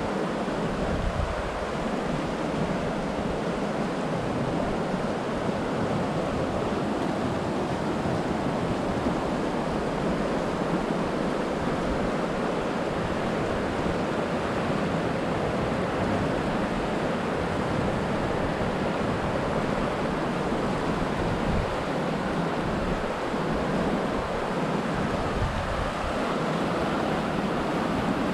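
The Pecos River, a mountain trout stream, rushing fast over rocks and riffles in a steady wash of water.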